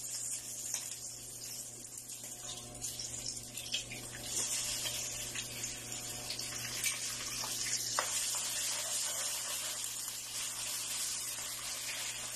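Eggs frying in hot oil with sautéed onion in a pan: a steady sizzle with scattered crackles.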